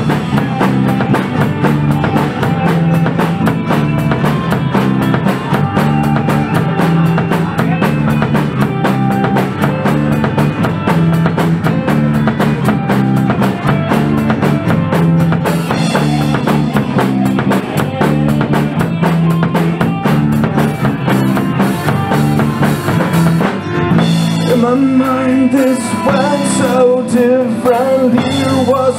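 Live rock band playing an instrumental passage, with a drum kit driving a steady beat over bass and guitars. Near the end the drums drop back and a wavering melody line comes in.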